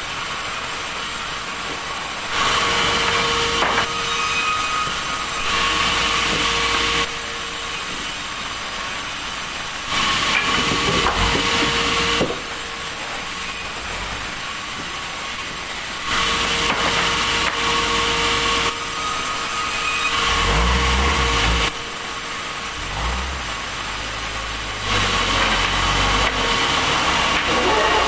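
Sawmill saw running steadily and cutting wood, getting louder in four stretches of about three seconds each.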